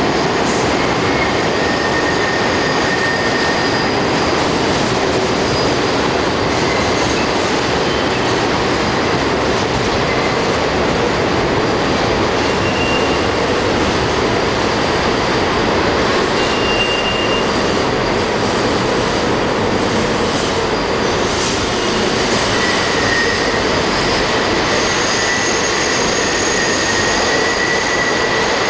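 R40 subway cars rolling slowly past the platform: a steady loud rumble of steel wheels on rail, with high wheel squeals that come and go several times.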